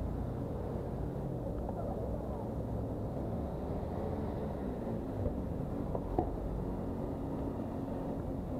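Steady rumble of city road traffic heard from a moving bicycle, with two short sharp clicks about five and six seconds in.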